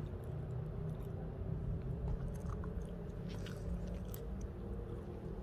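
Faint irregular crunching, like footsteps on a gravel path, over a steady low rumble of wind on the microphone.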